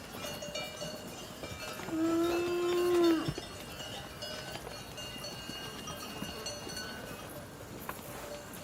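A cow moos once, a single held call lasting just over a second that ends abruptly, over faint steady high ringing tones in the background.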